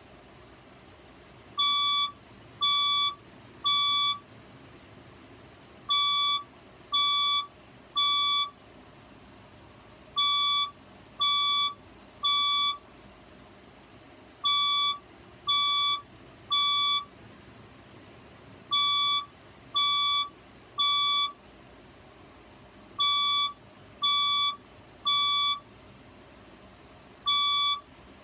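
Fire alarm speaker strobe sounding the temporal-three evacuation tone: three one-second beeps, then a pause, the group repeating about every four seconds. This is the standard signal to evacuate the building.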